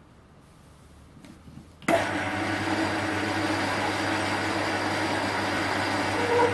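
Small metal lathe switched on about two seconds in, its electric motor and gearing then running steadily with a low hum.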